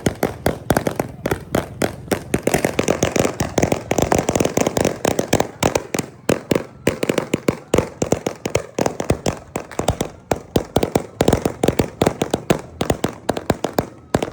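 Firecrackers going off in a rapid, uneven string of sharp bangs, several a second without a break.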